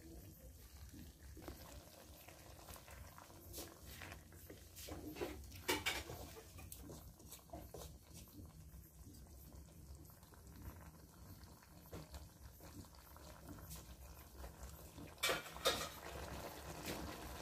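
Pork and bamboo shoot cooking in a pot, bubbling steadily, with a utensil knocking against the pot now and then. The loudest knocks come as a pair about a third of the way in and another pair near the end.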